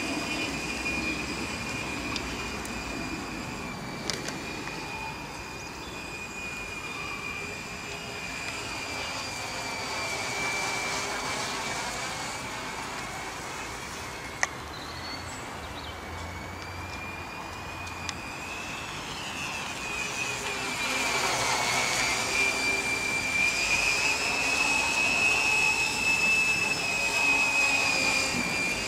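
Mini tricopter's three 18 g brushless motors with 7x6 slowfly propellers: a steady high-pitched whine that shifts in pitch with throttle, dipping and climbing back about two-thirds through and growing louder near the end as the craft comes close. A single sharp click about halfway through.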